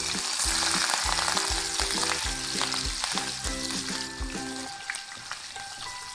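Sliced green chillies frying in hot oil with mustard seeds, a dense sizzle that is loudest at first and dies down after about four and a half seconds, stirred with a wooden spatula.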